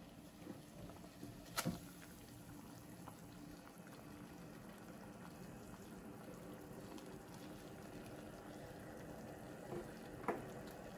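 Broth simmering faintly in a small stainless saucepan on an electric hot plate, with a block of instant noodles just added. Two sharp light knocks stand out over it, one about a second and a half in and another near the end.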